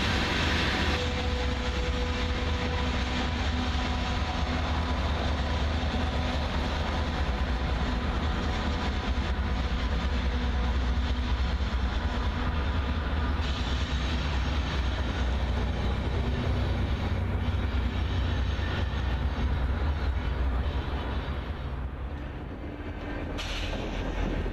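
Union Pacific coal train's loaded hopper cars rolling past, a steady rumble of steel wheels on rail. The sound dips briefly near the end.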